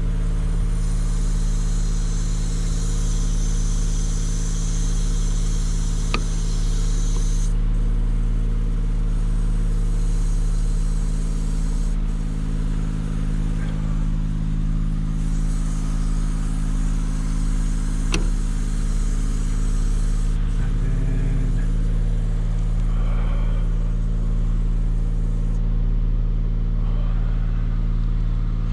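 An aerial-lift truck's engine running at a steady idle to power the boom. A hiss sits over it for the first several seconds, with a few faint clicks.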